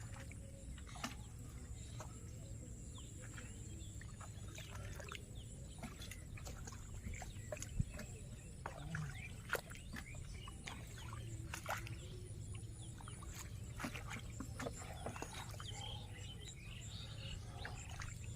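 Outdoor ambience: a steady low rumble with many scattered sharp clicks and taps, the loudest about 8 and 9.5 seconds in.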